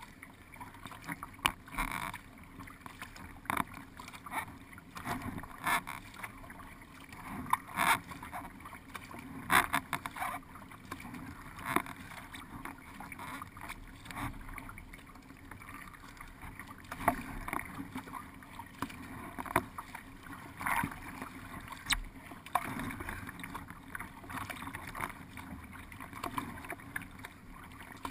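Paddle strokes splashing in the water every second or two over a steady wash of water along the hull of a narrow decked racing boat.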